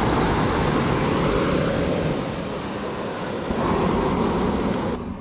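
Hot air balloon propane burner firing, its valve held open by hand: a long, steady blast that cuts off suddenly near the end.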